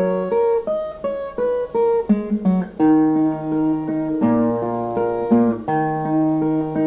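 Instrumental break on viola, with plucked string notes playing the melody over lower bass notes.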